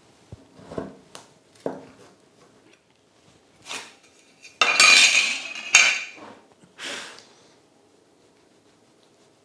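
Kitchen knife scraping and knocking against a metal baking tin while cutting a sheet cake in it. A few light knocks come first, then louder metal-on-metal scrapes a little past the middle.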